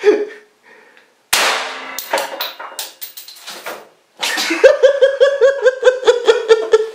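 A single shot from a Walther P99 T rubber-bullet pistol, sudden and ringing briefly in the small room, about a second in. For the last three seconds it is followed by loud, high-pitched laughter that comes in quick repeated bursts.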